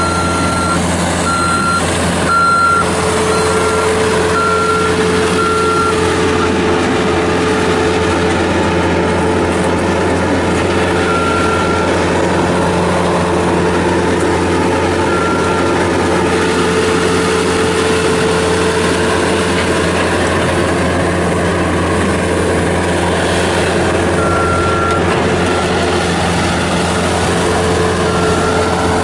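Bobcat S205 skid steer loader's Kubota diesel engine running steadily while the machine is operated. Its backup alarm beeps repeatedly for the first six seconds, then sounds in single short beeps a few more times as it reverses. A steady higher hum joins the engine about three seconds in.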